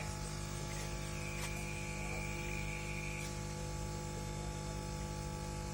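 Steady electrical hum and buzz, with a thin high whine for about two seconds in the middle and a single click about one and a half seconds in.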